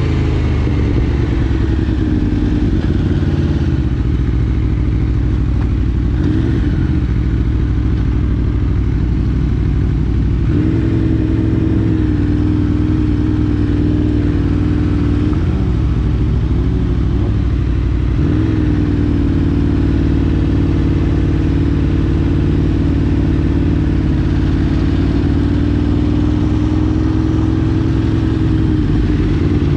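Aprilia RSV4 Factory's V4 engine running under way with a steady note. Its pitch wavers and dips with throttle changes about halfway through, then climbs slowly again.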